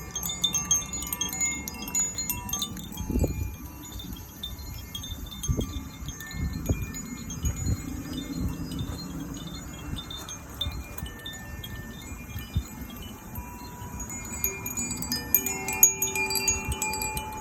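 Zaphir chimes ringing: a continuous tinkling of many clear, overlapping tones, with a few longer held tones near the end. There are a few soft low thumps in between.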